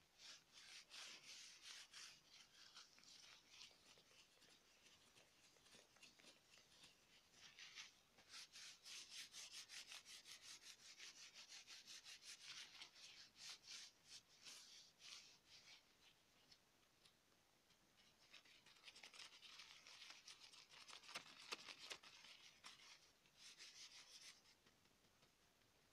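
Gloved hands rubbing together close to the microphone: quiet, fast, scratchy strokes that come in dense runs, easing off about two-thirds through and picking up again near the end.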